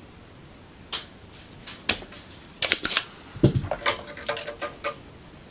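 Spring-loaded solder sucker (desoldering pump) being fired at a solder joint with a sharp snap about a second in, followed by a run of clicks, a dull knock and clatter as the tool is put down on the bench mat and the board is handled.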